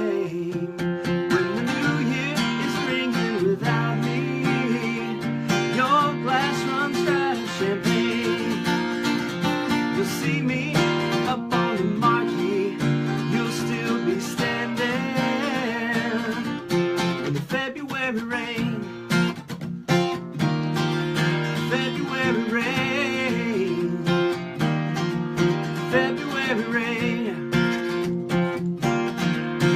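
Solo acoustic guitar playing an instrumental passage in a country-pop song, with plucked and strummed notes running on without a break.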